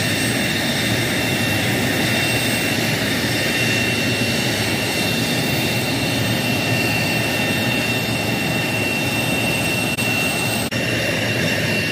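Loud, steady jet turbine noise with a high whine over a continuous rush, from a Navy A-4 Skyhawk on the ramp with a yellow air-start cart hosed to it during start-up. The sound briefly drops out twice near the end.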